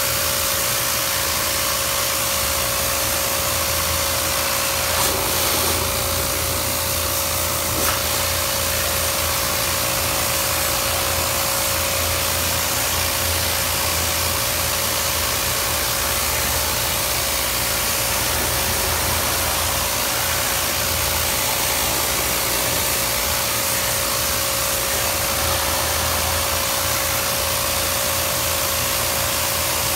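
A high-speed electric motor runs steadily with a strong rush of air and one constant whine. This is the kind of air-moving machine used to clean a refrigeration unit.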